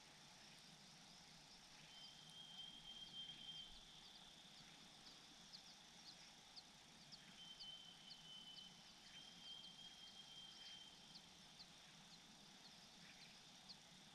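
Faint high-pitched animal calls: a run of short falling chirps at about two a second, and twice a long, steady, high trill, first about two seconds in, then from about seven to eleven seconds.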